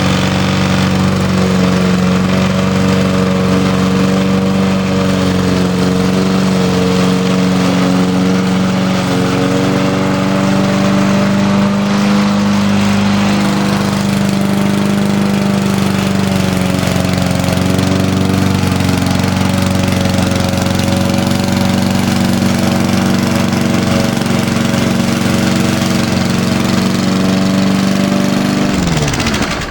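Lawn mower's small gasoline engine running steadily, its pitch dipping and recovering a few times, then shut off near the end.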